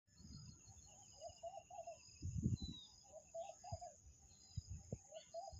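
A bird calling in short low notes, three runs of about four notes each, over a steady high insect drone, with a few thin higher whistles and irregular low rumbles of wind on the microphone.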